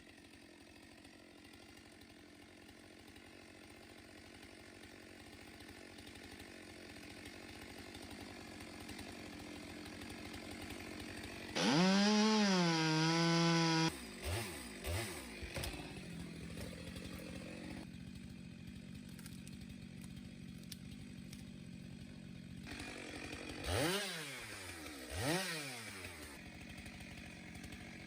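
Chainsaw idling quietly, then run up to full throttle for about two seconds near the middle and blipped twice in quick revs near the end.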